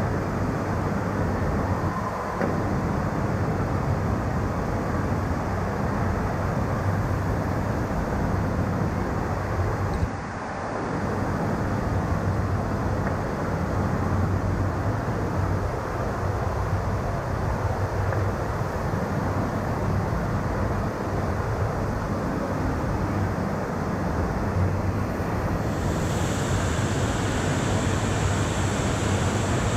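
Steady loud rush of a FlowRider wave simulator, its thin sheet of water pumped up the padded ramp and breaking under the riders' bodyboards.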